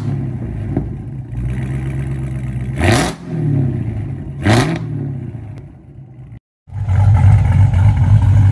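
Dodge Challenger Hellcat's supercharged 6.2-litre Hemi V8 running through a newly fitted AWE Track Edition exhaust: idling, with two quick revs about three and four and a half seconds in. After a brief cut about two-thirds of the way through, it runs on louder and steady.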